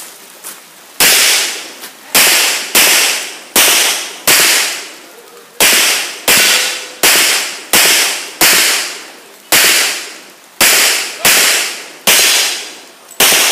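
Handgun shots fired in a string, about sixteen at a steady pace of roughly one shot a second, each a sharp crack with a fading echo, starting about a second in.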